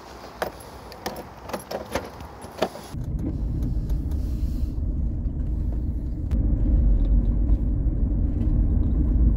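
Keys jangling and sharp clicks at a car door's lock and handle. Then a steady low rumble of the car running, heard inside the cabin, which gets louder about six seconds in as the car drives off.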